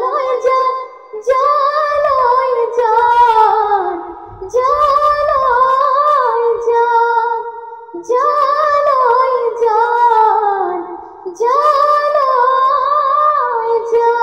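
A teenage girl singing solo and unaccompanied, in four long, wavering phrases of about three seconds each with short breaks for breath between them.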